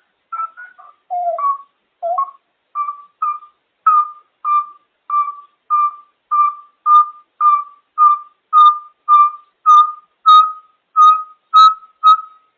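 African grey parrot whistling a long string of short notes, about two a second; the first few waver up and down in pitch, then they settle on one steady note and grow louder.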